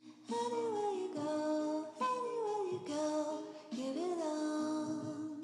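Background music: a melody of held notes that slide between pitches, over steady lower notes.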